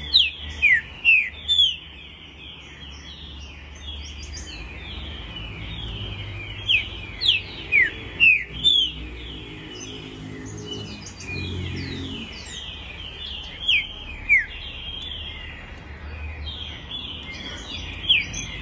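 Green-winged saltator (trinca-ferro) singing the song style keepers call pampo: loud, sharp whistled notes that slide downward, in short phrases of four or five notes repeated every few seconds. Constant fainter chirping runs underneath.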